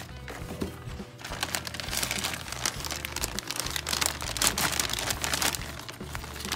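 Plastic bag of Miracle-Gro potting mix crinkling and rustling irregularly as hands dig soil out of it.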